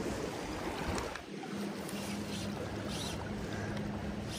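River current running steadily around the wading angler. A faint steady hum sits under it from about a second and a half in.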